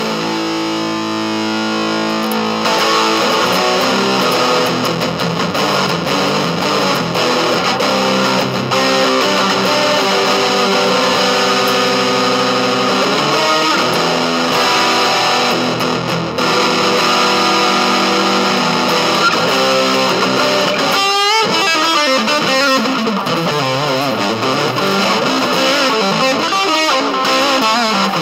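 Electric guitar played through a Mr.7 GA-40R 40-watt combo amplifier with an overdriven, distorted tone: continuous riffing and lead lines. About three-quarters of the way through there is a short break, after which the notes waver and bend quickly.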